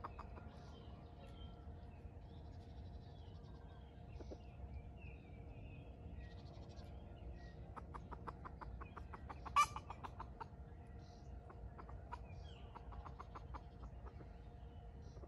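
Red junglefowl clucking: a run of short clucks from about eight seconds in, with one sharp, louder one near the middle of the run. Faint chirps of small birds run underneath.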